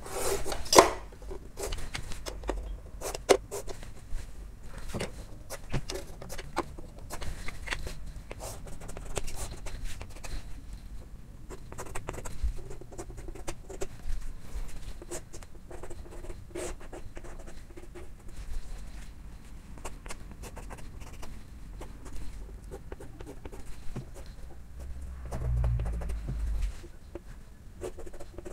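Chalk on a blackboard: irregular short scrapes and taps as dimension lines and arrowheads are drawn.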